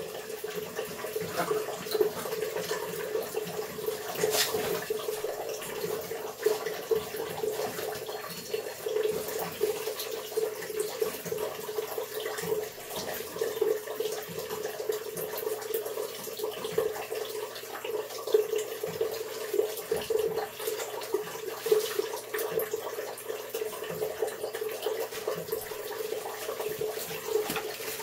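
Water running steadily as a Bradford White gas water heater drains through a hose from its drain valve. It is a slow drain, which the installer suspects may be partly plugged.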